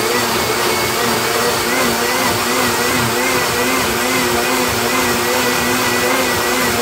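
Blendtec blender motor running steadily, pureeing cooked broccoli and its stock into a smooth soup. A loud, even whir with a motor whine that wavers slightly up and down in pitch.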